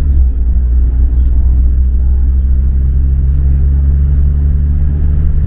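Volkswagen Kombi van driving on the road: its engine runs with a steady low hum whose pitch creeps slightly upward as it gathers speed.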